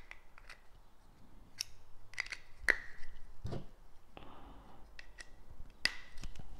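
A die-cast toy starship and its plastic packaging being handled: scattered sharp clicks and taps, some with a short ring, and a brief rustle a little past four seconds in.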